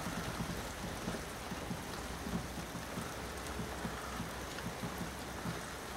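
Heavy rain falling steadily, a dense even hiss, with frequent dull taps of drops landing close by.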